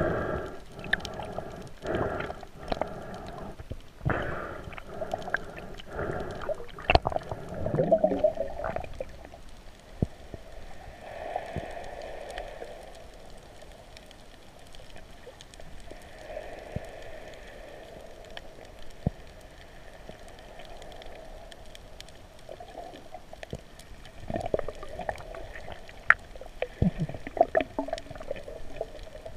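Muffled underwater gurgling and water movement picked up by a submerged camera, swelling and fading, with scattered sharp clicks and knocks.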